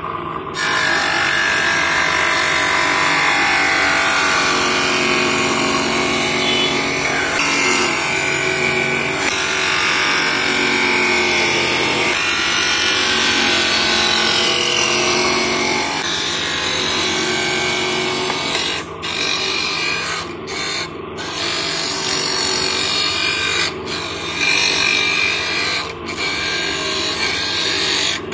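Spectacle lens being ground by hand against the spinning wheel of a manual lens edging machine, a loud continuous grinding that shifts in pitch as the lens is worked. It is broken by several brief dips in the last ten seconds or so.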